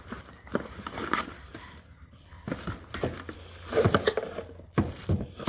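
Irregular clicks, scrapes and rustling, as of an object being handled, over a low steady hum.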